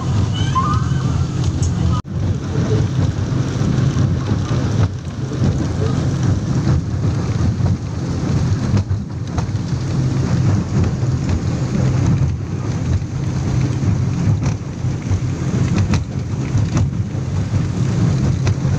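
Speedboat engines heard from inside the passenger cabin: a steady, loud low drone with a rushing hiss over it, unbroken except for a brief drop about two seconds in.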